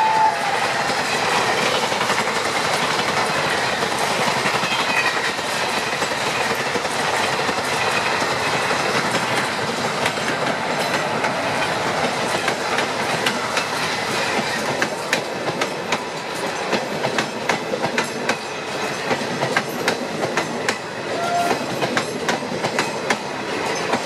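Indian Railways passenger train hauled by a WAP-4 electric locomotive running past: a steady rush of the coaches on the track, with the wheels clacking over rail joints more sharply in the second half.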